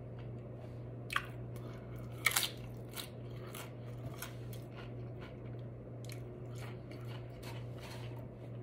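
Close-miked chewing of a mouthful of food, with a few sharp crunches and wet mouth clicks, the loudest about two seconds in, over a steady low hum.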